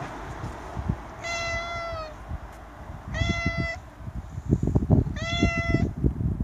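A domestic orange-and-white tabby cat meows three times, each meow under a second and about two seconds apart, asking to be let in at the door. In the second half come soft thumps and rubbing noises, louder than the meows.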